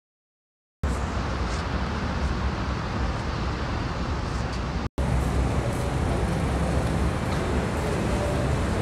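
Silent for under a second, then steady road-traffic noise with a low rumble. It cuts out for an instant about five seconds in.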